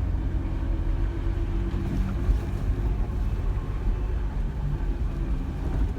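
Jeep Wrangler driving along a rough dirt forest road, heard from inside the cab: a steady low engine drone with tyre and road rumble.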